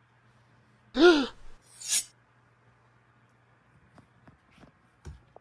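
A child's short, high-pitched vocal cry whose pitch rises and falls, then a breathy hiss just under a second later, as if voicing a toy's action. A few faint taps of handling follow near the end.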